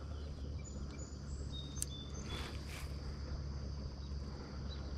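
Quiet lakeside ambience: a steady low hum under a few short, high bird chirps, with a single sharp click about two seconds in.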